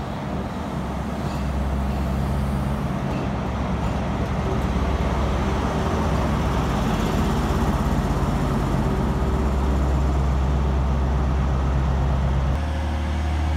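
LNER High Speed Train moving along the platform: a steady rolling rumble of the coaches with the low hum of a Class 43 power car's diesel engine underneath, the hum changing in pitch about a second before the end.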